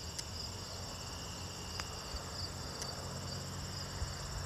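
Crickets chirping in a steady evening chorus, with a faint low hum underneath.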